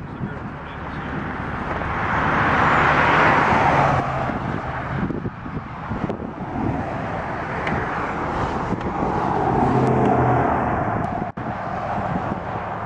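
Car road noise from driving, with engine hum and tyre noise that swells twice, about two to four seconds in and again around ten seconds in.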